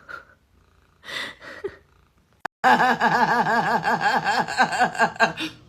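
Rapid laughter-like voice, a run of pitched pulses about four a second. It starts abruptly about two and a half seconds in and stops just before the end, after a short breathy sound and a click.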